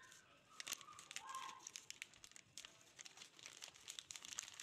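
Faint crinkling and rustling of a plastic custard-powder packet as it is tipped and shaken out over a glass bowl, many small crackles close together.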